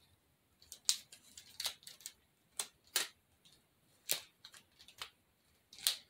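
A plastic piping bag being handled: about half a dozen short, crisp crackles and snips spread unevenly.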